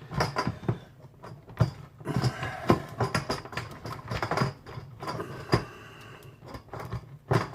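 Irregular clicks, knocks and scrapes of a fuel pump and sending unit being worked by hand into the gas tank opening, which is binding and won't sit right.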